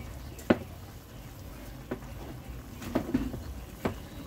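A kitchen knife cutting chunks off a cucumber held in the hand: a handful of short, sharp clicks and taps, the loudest about half a second in.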